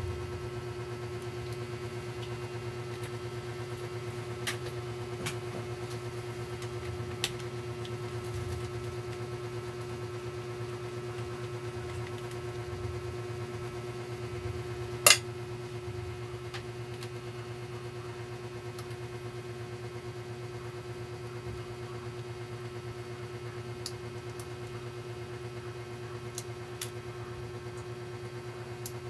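Steady motor hum holding one pitch, with scattered light clicks and taps, one sharper click about halfway through.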